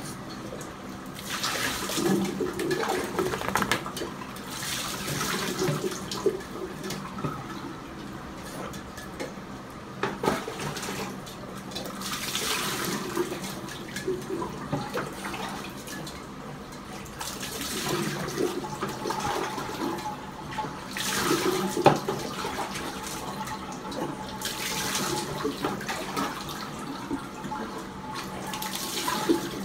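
Water splashing over a French bulldog in a bathroom sink, poured in gushes a few seconds apart, with a couple of sharp knocks in between.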